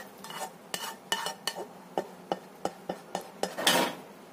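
A cooking utensil tapping and scraping against a pan as thickened sauce is poured and scraped out onto a plate: a string of sharp taps, about two or three a second, then a longer, louder scrape near the end.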